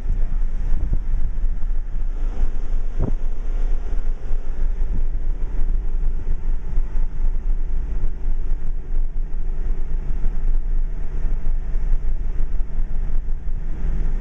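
Subaru Outback heard from inside the cabin while driving: a steady low rumble of engine and road noise, with some wind on the microphone. A brief knock sounds about three seconds in.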